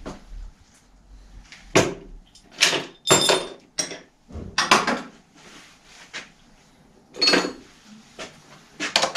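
Spanners and metal parts clinking and clanking at a bicycle's rear axle as the chain tensioners are loosened: a series of separate sharp clanks, a few of them ringing briefly.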